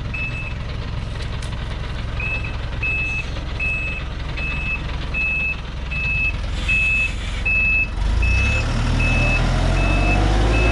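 A loaded log truck's reversing alarm beeps steadily about twice a second over its running engine, with a short break in the beeping about half a second in. About eight seconds in, the engine grows louder and rises in pitch as it is revved to move the heavy load.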